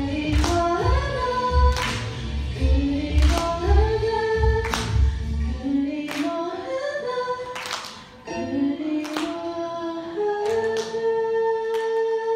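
A girl singing a Korean song into a microphone over a backing track with a steady bass beat that drops away about halfway through. She holds one long note near the end.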